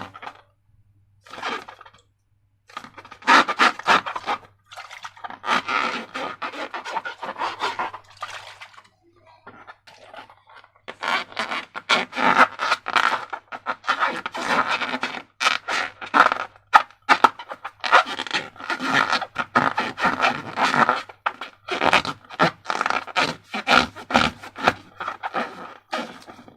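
Slime being squished and worked by hand, in bursts of rapid sticky clicks with short pauses between them.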